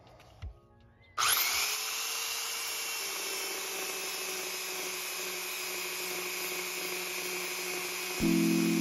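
A small electric belt sander (power file) switches on about a second in and runs steadily, its belt sanding the gelcoat and fiberglass of a boat hull to grind out an osmotic blister. Near the end it gets louder and deeper in pitch.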